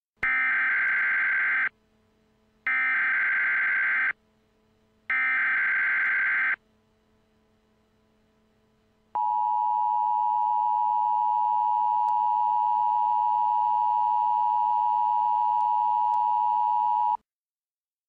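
Emergency Alert System signal: three short bursts of screeching digital data (the SAME header, sent three times), then after a pause a steady two-tone attention signal that holds for about eight seconds and cuts off.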